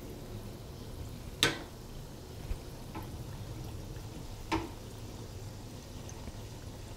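Doughnuts bubbling and sizzling in hot oil in a Tefal home deep fryer. Two sharp clicks of tongs against the wire basket about a second and a half and four and a half seconds in, with a couple of fainter taps between, as the doughnuts are turned.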